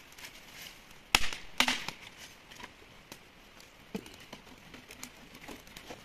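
Two sharp knocks about half a second apart a little over a second in, then a softer knock near four seconds, amid faint scattered clicks.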